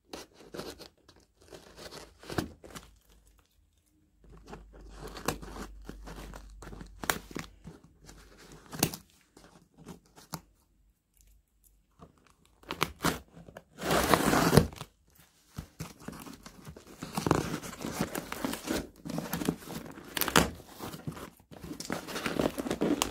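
Packing tape being picked at and torn off a cardboard shipping box, with scraping and crinkling as the flaps are worked open. There is a longer, louder rip about fourteen seconds in.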